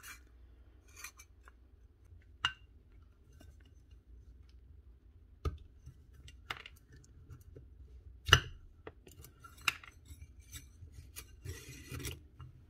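Scattered metallic clicks and clinks of a DeWalt cordless nailer's steel driver blade and coil return springs being handled and pulled apart, the sharpest clink about eight seconds in, with a short rasping rub near the end.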